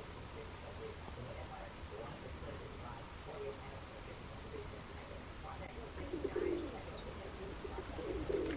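Doves cooing faintly in soft, low, repeated notes. A small bird gives a brief high trill of quick notes about three seconds in.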